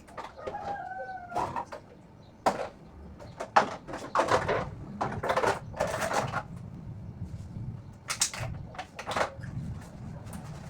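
A rooster crows briefly about half a second in, followed by a run of sharp knocks and clatter of household items being handled during kitchen cleaning.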